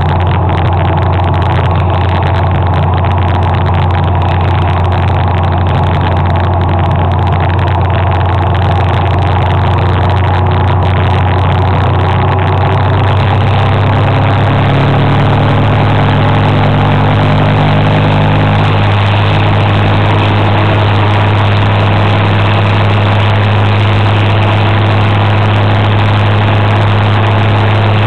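Motor scooter engine running steadily under way, heard from on board as a loud, even drone; its pitch rises a little about fifteen seconds in.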